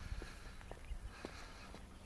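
Faint footsteps on a concrete path, about two steps a second, over a low rumble.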